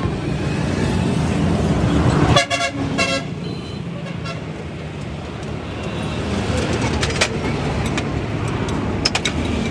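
A vehicle horn sounds twice in quick succession, two short blasts about two and a half seconds in, over the steady rumble of engines and road traffic. A few sharp clicks follow later.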